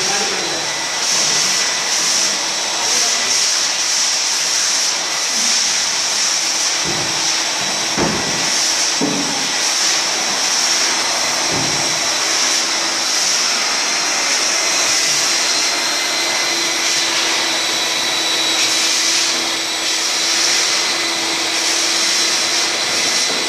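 Wet-and-dry canister vacuum running steadily with a high whine, its floor wand sucking water off a wet tiled floor.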